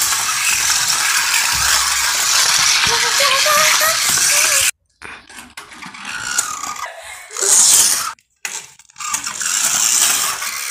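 A toy car and a corded computer mouse pushed by hand over a tiled floor, rolling and scraping. The noise breaks off abruptly a few times where the shots change.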